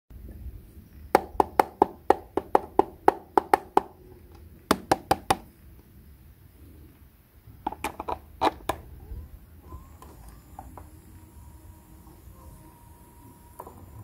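Hard plastic toy pieces clicking and knocking in quick runs of sharp taps as they are handled, with more clicks as the battery compartment of a toy washing machine is worked. From about ten seconds in, a faint steady whine begins, the small motor of the toy washing machine running.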